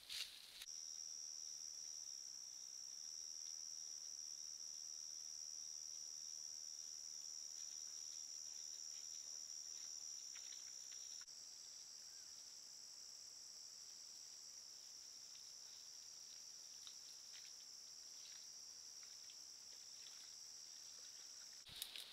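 Steady, high-pitched chorus of night insects trilling without a break. About eleven seconds in it shifts abruptly to a slightly higher-pitched, quieter chorus.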